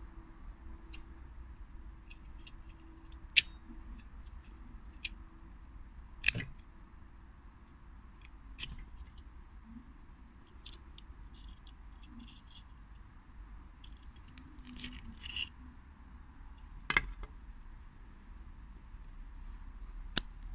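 Small metal clicks and light scrapes from an early-1960s Soviet Leningrad petrol pocket lighter being handled, its insert slid in and out of the case. A few sharper clicks stand out, about three seconds in, about six seconds in, around seventeen seconds in, and just before the end.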